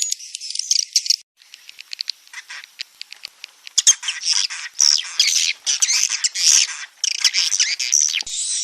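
Swiftlet twittering, rapid high chirps and clicks in a recorded roosting-call track used to lure swiftlets into a swiftlet house. The dense chirping cuts off about a second in, sparse ticks follow, and thick twittering returns from about four seconds.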